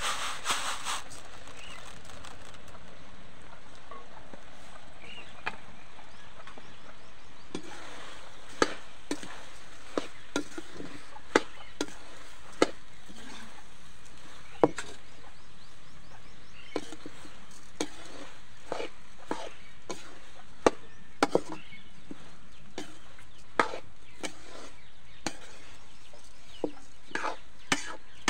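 Raw rice poured from a bamboo tray into a steel kadai rushes in briefly at the start. From about five seconds in, a steel ladle stirring the rice knocks and scrapes against the pan in irregular sharp clicks, one every half second to a second or so.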